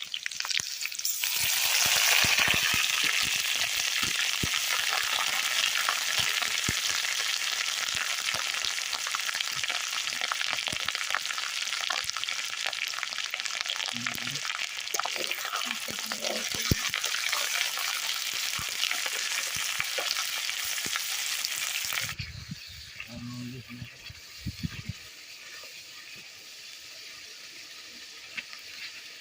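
Food sizzling in hot oil in a pan as it fries, with occasional stirring. The sizzle comes up sharply about a second in, as food meets the oil, holds steady, and cuts off abruptly near the end. It is followed by a few low knocks over a quieter background.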